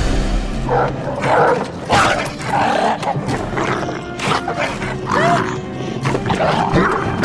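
Action-film soundtrack: dramatic orchestral score mixed with the growls of monstrous dogs and repeated sharp impact hits.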